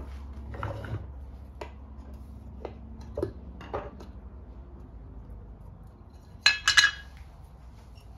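Metal can of oil finish being handled and its lid pried off: a few light knocks, then a short burst of sharp metallic clinks about six and a half seconds in as the lid comes off.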